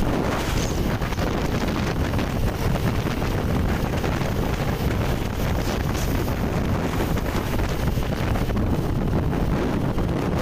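Steady wind buffeting the microphone of a camera riding along a road, with a low rumble of engine and tyres beneath.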